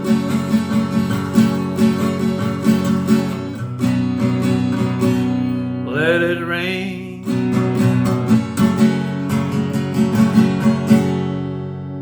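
Instrumental passage of a country song: acoustic guitar strummed in a steady rhythm, with one rising note about six seconds in.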